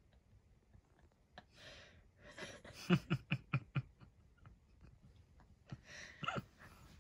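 A person's stifled laughter: a quick run of about five short 'ha' pulses a few seconds in, then a shorter laugh near the end.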